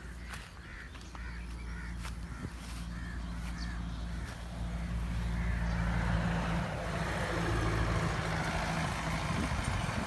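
Tall grass rustling and swishing as it is pushed aside, growing louder from about halfway through. Before that, a bird gives a string of short calls over the first few seconds.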